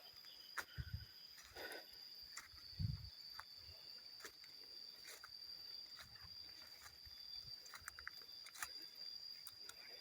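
Faint rustles and soft low thumps of footsteps on the forest floor, under a steady high-pitched drone.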